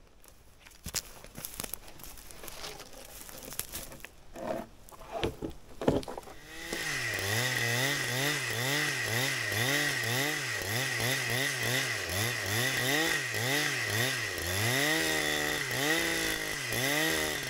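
A few knocks and handling noises, then about six seconds in a chainsaw starts running under load. Its pitch rises and falls about once a second as it cuts along the top of a felled spruce log, the scoring cut of freehand chainsaw milling.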